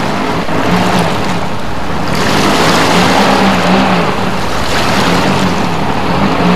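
A car engine running with a low hum that comes and goes, under a loud, steady wash of sloshing muddy water that swells in the middle.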